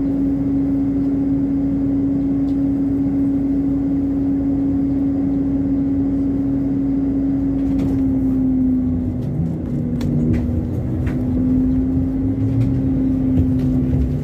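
ZiU-682G trolleybus heard from inside the passenger cabin: a steady hum while it stands, then about two-thirds of the way through the hum wavers and a shifting motor whine with a few clicks comes in as it moves off.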